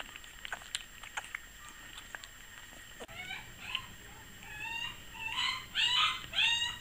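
Three-week-old puppies at the bottle: faint sucking and smacking clicks at first, then from about three seconds in a puppy whining in short rising-and-falling squeals, two or three a second, growing louder near the end.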